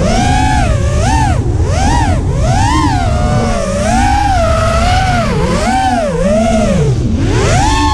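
Brushless motors and propellers of an FPV racing quadcopter (DYS Fire 2300KV motors) whining, the pitch swooping up and down every half second to a second with constant throttle changes in flight. A low rumble of wind and prop wash on the onboard camera's microphone runs under it.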